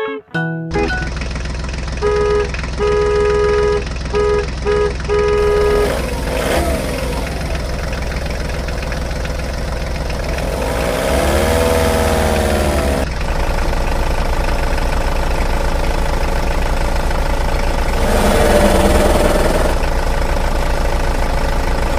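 A heavy vehicle's engine running steadily, with a series of about six short horn honks a couple of seconds in and a rise and fall in pitch around the middle.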